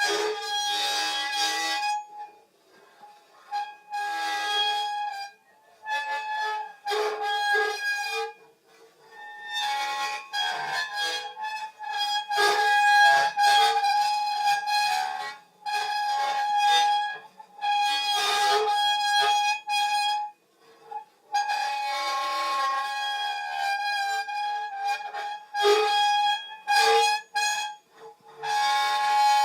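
Shrill, nasty Foley 'death screech': one steady high note with a stack of overtones, held in repeated blasts of one to three seconds with short breaks between them.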